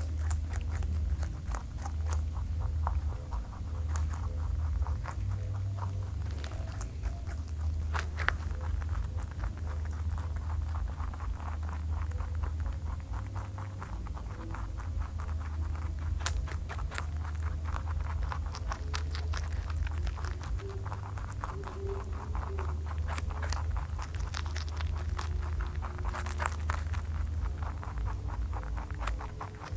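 Rabbits chewing and crunching carrot and cabbage leaf close to the microphone: a fast, steady run of small crisp crunches. A steady low hum runs underneath.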